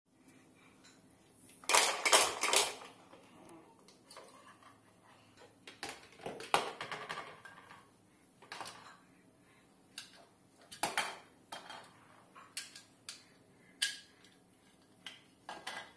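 Toy pots being handled by a toddler: irregular clatters and clinks of the pot and small toy pieces knocking together, in scattered clusters with the loudest about two seconds in.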